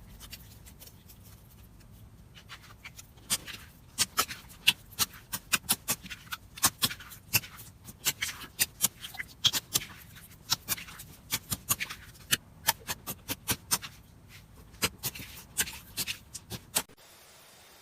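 Slime being poked and squeezed by hand, giving an irregular run of sharp clicks and pops, a few each second, that stops suddenly shortly before the end.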